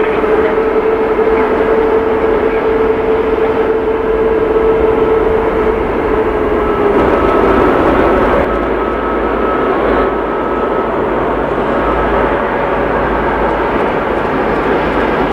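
Boeing 777-200ER's twin turbofan jet engines running as the airliner moves past close by: a steady jet roar with a whine that slides lower about six to eight seconds in.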